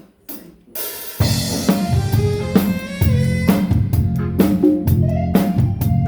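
The last two sharp clicks of a count-in, then a small live band comes in about a second later, the drum kit keeping a steady beat over bass and other instruments as the song's intro begins.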